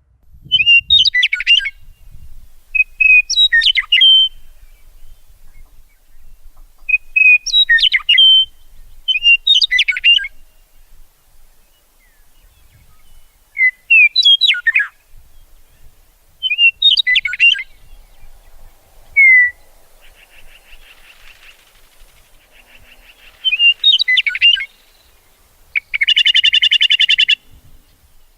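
Songbirds chirping and singing in short, quick phrases of high chirps every couple of seconds, with buzzy stretches later on and a loud buzzing trill near the end.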